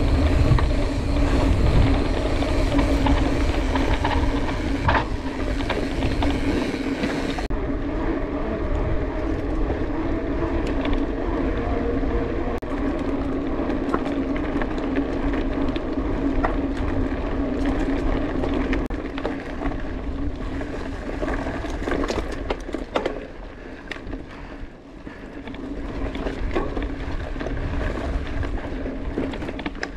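Mountain bike riding heard from an on-bike action camera: a steady rolling hum from the tyres with wind on the microphone and occasional clicks and rattles from the bike. It drops quieter for a moment about four-fifths of the way in.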